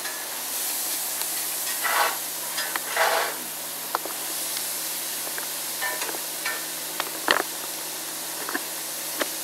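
Mushrooms sizzling in butter in a cast iron skillet, stirred with a spatula: a steady hiss with a couple of short scraping strokes about two and three seconds in, then several sharp taps of the spatula on the pan.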